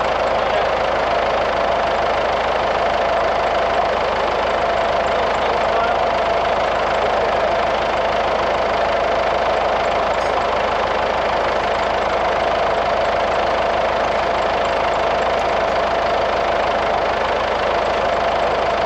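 Engine idling steadily at an even speed, with a steady mid-pitched tone in its drone.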